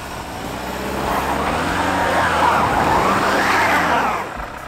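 Volkswagen Tiguan crossover's engine revving hard under load on a steep snow climb, its pitch rising and falling twice before the revs drop near the end.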